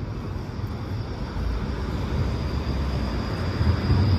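Bombardier Flexity Outlook (STIB TNG) low-floor tram approaching along its rails: a low rumble that grows steadily louder, with a faint high whine coming in near the end.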